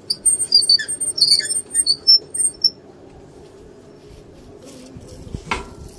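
Metal hose reel of a crop sprayer squeaking as it turns and the spray hose is pulled off: a quick, irregular run of high-pitched squeaks that stops a little under three seconds in. A single knock comes near the end.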